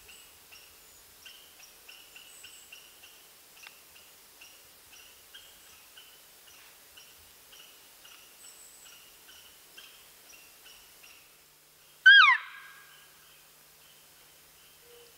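Cow elk call: one loud, short mew that slides sharply down in pitch about twelve seconds in. Faint, regular high chirping runs in the background.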